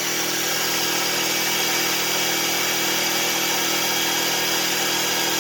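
A 1,600-watt hair dryer blowing steadily on high, with the Enkeeo SC2300i's 79cc four-stroke inverter generator running under its load of about 1,350 watts. It is an even rush of air over a steady engine hum, with no change.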